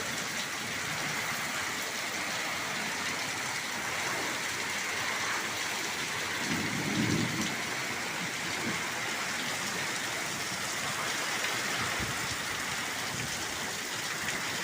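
Heavy rain falling steadily in a thunderstorm, with a brief low rumble about halfway through.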